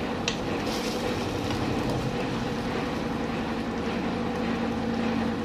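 A wooden spoon stirring chicken in sauce in a wok, with a sharp tap of the spoon about a third of a second in, over a steady humming drone.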